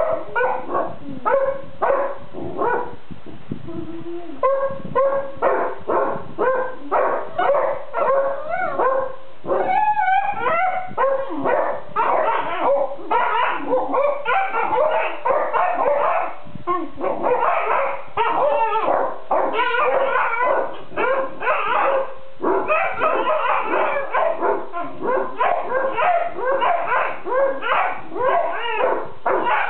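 Basset hounds grumbling at each other in their sleep: a near-continuous run of short, pitched whines and mutters passed back and forth between the dogs.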